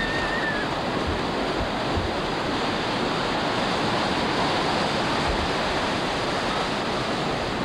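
Ocean surf: waves breaking and whitewater washing through the shallows, a steady rush without a pause.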